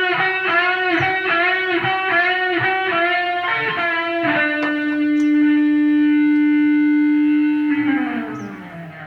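Intro music on guitar: a repeated phrase of bending notes, then one long held note that slides down in pitch and fades near the end.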